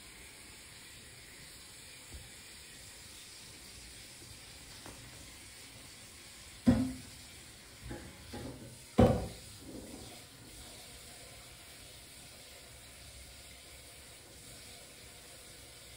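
Kitchen bowls and utensils knocking on a tabletop: two sharp knocks a little over two seconds apart, with smaller clatters between them, over a steady faint hiss.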